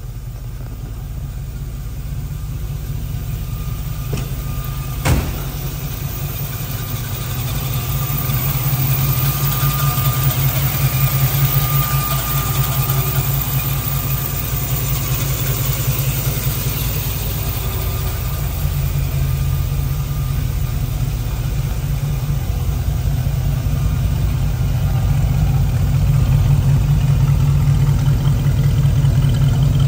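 1966 Ford Mustang's 289 two-barrel V8 idling steadily through its dual exhaust, getting louder near the end. A single sharp click comes about five seconds in.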